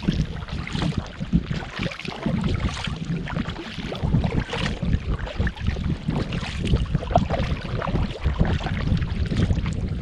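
Paddling a folding touring kayak: water splashing and dripping with the paddle strokes, under a heavy, uneven rumble of wind on the microphone.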